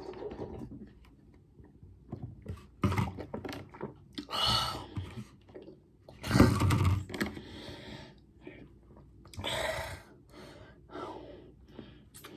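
A person gulping raw eggs and spicy sauce from a bowl, then a string of short non-word vocal sounds and breaths as they force them down, the loudest a little past halfway.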